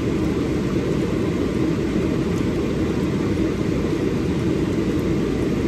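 A steady, low rumbling noise at an even level throughout.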